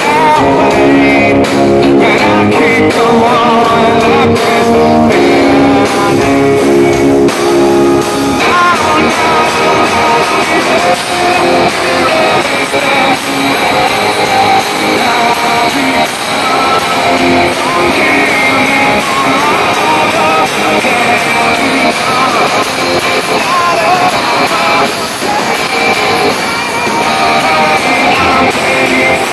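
Rock band playing live on electric guitars and drums, with singing at times: held chords for the first several seconds, then a busier passage.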